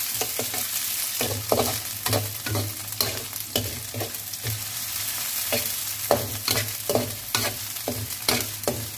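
Sliced onions and pounded chili-garlic paste sizzling in hot oil in a metal wok, with repeated scrapes of a metal spatula stirring against the pan, about two strokes a second.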